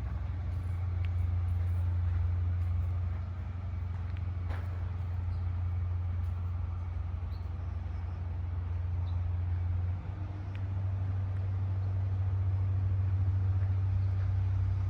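Engine of a 2006 Tescar CF 2.5C compact drilling rig running at a steady low hum, with a brief dip in level about ten seconds in.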